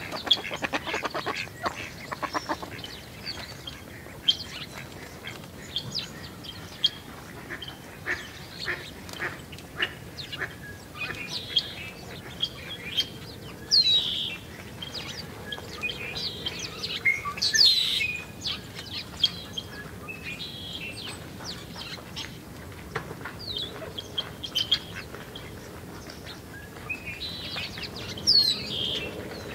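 A flock of small songbirds, mostly house sparrows, chirping: a continual run of short, sharp chirps and downslurred calls, with a buzzy chattering call in the first few seconds.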